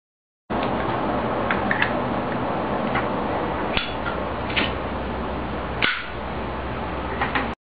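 Zippo lighter being handled in a trick: about ten sharp metallic clicks of the lid and wheel over a steady hiss.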